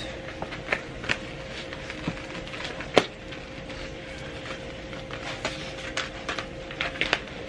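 Plastic packaging and a new iPad case being opened and handled: scattered small clicks and crinkles, with one louder snap about three seconds in.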